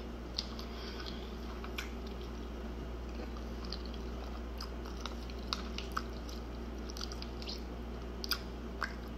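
Close-up eating sounds: a person chewing a mouthful of spaghetti, with wet mouth noises and scattered sharp clicks as the fork knocks against the plastic bowl, over a steady low hum.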